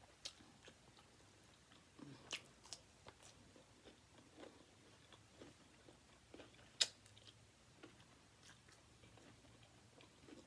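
Faint chewing and mouth sounds of someone eating, with scattered soft crunches and clicks, the sharpest about seven seconds in.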